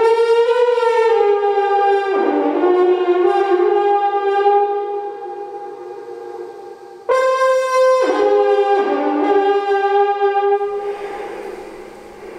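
Coiled copper-tube horn blown through a brass mouthpiece: two long held notes, each starting at a higher pitch and dropping lower partway through, then fading. The second note comes in suddenly about seven seconds in.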